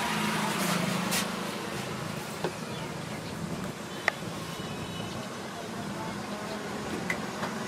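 Steady outdoor street background noise with a low traffic hum, and a few light clicks and taps, the sharpest about four seconds in.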